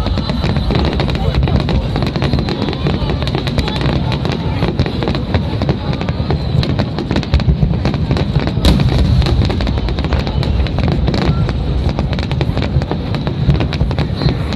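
Fireworks finale barrage: dense, rapid bangs and crackling overlapping into a continuous low rumble, with a sharper crack a little past halfway.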